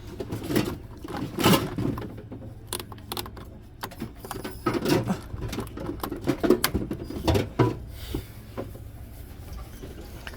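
A Bissell Zing canister vacuum being handled while switched off: irregular plastic clicks, knocks and scraping, as its cord or parts are pulled out and handled.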